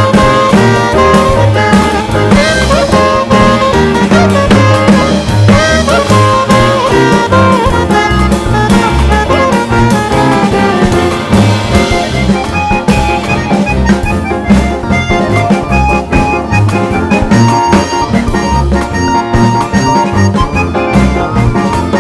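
Background music with brass instruments and a steady drum beat.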